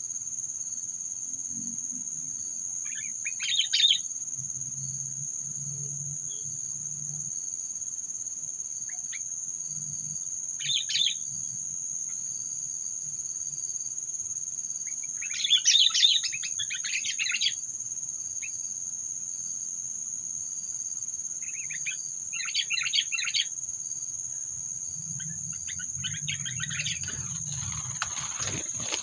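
Sooty-headed bulbuls (kutilang) calling in short bursts of rapid chattering notes, about five times with pauses between. A steady high-pitched insect drone runs underneath.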